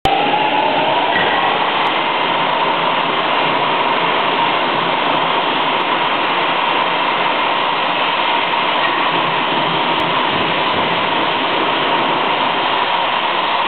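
BV-Tech FTBV/1600-2000 automatic bridge saw running its large circular blade through a stone slab: a loud, steady grinding and rushing noise with a whine that rises slightly over the first second or so, then holds steady.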